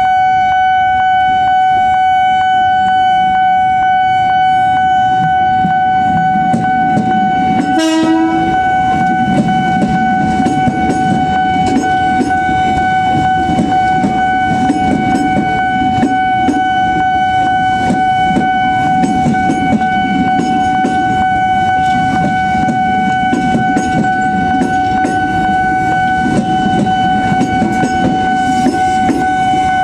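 A railroad crossing warning alarm holds one continuous high tone. About eight seconds in, a KRL electric commuter train gives a brief horn blast that drops in pitch. The train then rumbles past, its wheels clattering over the rails.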